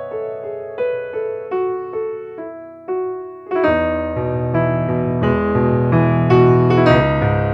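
Background piano music: a slow line of single notes, joined about three and a half seconds in by a fuller, louder accompaniment with a bass line.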